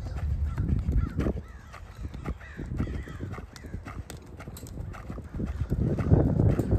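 Horse cantering on a sandy arena floor, its hooves landing in dull, irregular thuds that grow loudest near the end.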